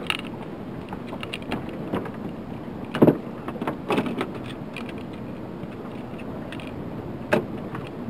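Scattered knocks and clunks of fishing gear being handled in a small boat, the loudest about three seconds in, over a steady background hiss.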